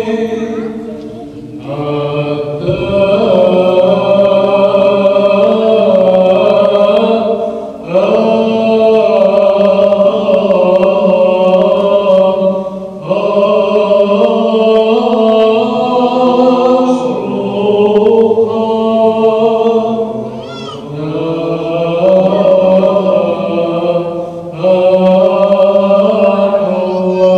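Male chanters singing Byzantine chant in slow Arabic Papadic style, in long drawn-out phrases. A steady low held note lies beneath the moving melody, and the phrases break off briefly about every five seconds.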